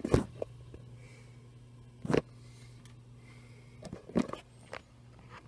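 Desktop PC running with a steady low hum while it loads, broken by a handful of short, sharp knocks and clicks.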